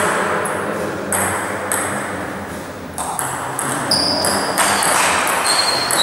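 Table tennis ball clicking off the paddles and the table: a few scattered hits, then a quicker run of a rally from about three seconds in. Two short high squeaks come in the second half.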